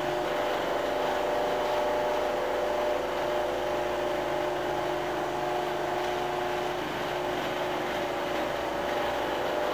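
Steady mechanical hum with a few constant tones, like a fan or motor running, holding level throughout with no knocks or changes.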